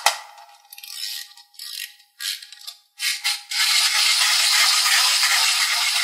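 A small plastic toy handled over a tray of small beads: a few short clicks and rattles, then from about three and a half seconds a steady, dense rattle.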